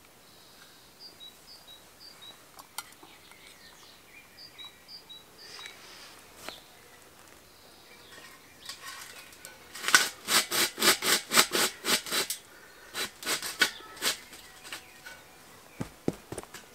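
Metal roasting can being handled and settled into the soil over the chicken: a quick run of sharp clicks and scrapes about ten seconds in, with a few more shortly after. Faint bird chirps come in the first half.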